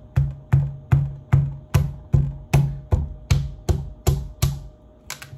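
An open palm striking the spine of a kitchen knife over and over to drive the blade through a tough-skinned pumpkin wedge on a countertop: about a dozen steady, even thuds, roughly two and a half a second.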